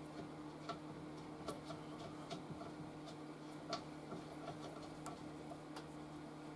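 Light, irregular clicks and taps as a rubber vibration foot is handled and fitted onto an air compressor's steel tank, about half a dozen in a few seconds, over a steady low hum.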